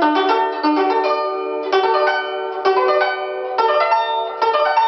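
Guzheng playing rolled arpeggios: quick runs of several plucked strings, one about every second, each chord left ringing.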